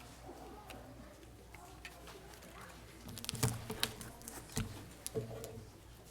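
Room noise over a steady low hum: faint murmuring early on, then a cluster of sharp clicks and a few dull knocks in the middle.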